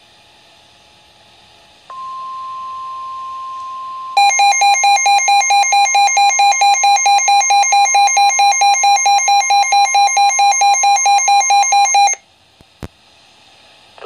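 Midland weather alert radio sounding a flash flood warning: a steady NOAA Weather Radio warning tone comes on about two seconds in, and about two seconds later the radio's own loud alarm starts beeping rapidly over it, about four beeps a second. Both cut off together near the end, followed by a single click.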